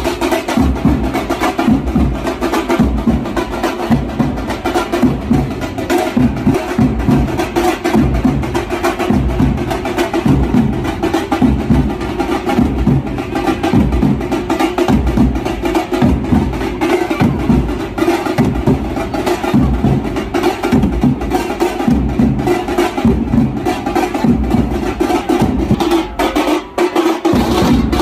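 A band of large double-headed, metal-shelled drums beaten with sticks, playing a loud, dense, driving rhythm.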